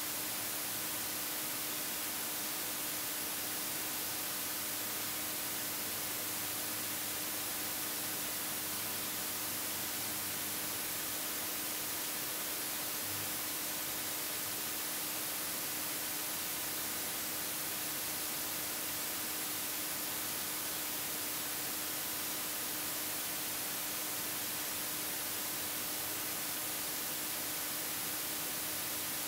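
Steady, even hiss with a faint steady hum underneath, unchanging throughout.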